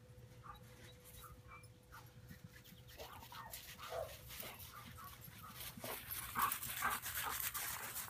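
Dogs whimpering in short, repeated high whines. Scuffling noise grows louder in the second half.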